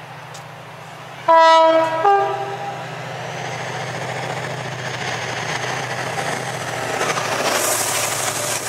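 Class 68 diesel-electric locomotive sounding its two-tone horn, one note then a second, about a second in, then its engine and wheels growing steadily louder as it runs through the station at speed. Its Caterpillar V16 diesel is working hard, loudest near the end as the engine passes.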